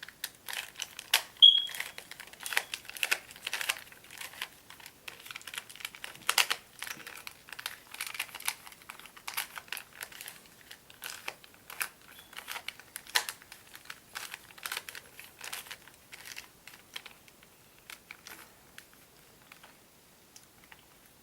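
Plastic Rubik's Cube layers being twisted by hand: quick runs of irregular clicking and clacking that thin out over the last few seconds.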